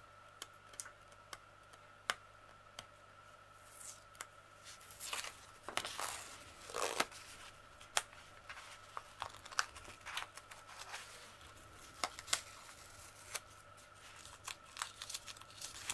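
Masking tape being peeled off a paper wrapping and the paper crinkling as a rolled canvas is unwrapped by hand: scattered small crackles and ticks, with a few longer tearing rustles near the middle.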